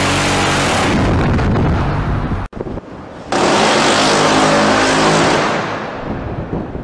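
20 mm Phalanx CIWS Gatling gun firing a long continuous burst, a rapid buzzing roar that is cut off abruptly about two and a half seconds in. A second long burst of rapid gunfire follows about a second later and trails off near the end.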